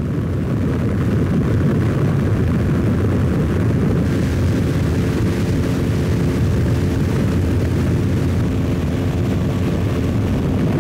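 Ultralight weight-shift trike's engine and propeller running steadily in cruise flight, with a constant rush of wind.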